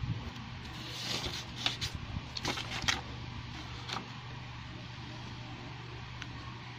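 Rustling and light clicks from hands handling a drawing compass on paper, clustered between about one and four seconds in, over a steady low hum.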